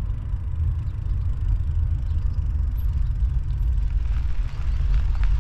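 Wind rumbling and buffeting on the microphone, with a few faint rattling clicks near the end.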